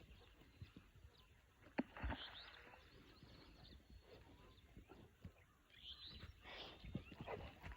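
Quiet outdoor ambience with a few faint bird chirps and a sharp click a little under two seconds in.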